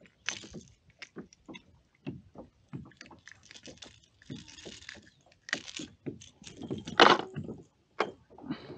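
Handling noises on a fishing kayak: scattered small clicks, knocks and rustles, with one louder rush of noise about seven seconds in.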